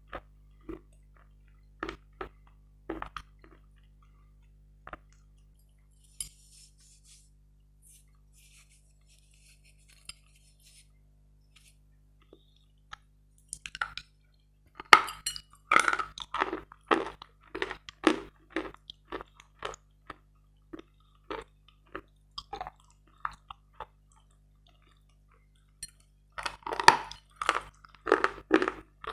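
Close-up crunching and chewing of dry, dense, grainy Metel chalk. A few single crunches at the start, a quiet stretch of faint crackling, then a dense run of bites and chews about halfway through and another near the end.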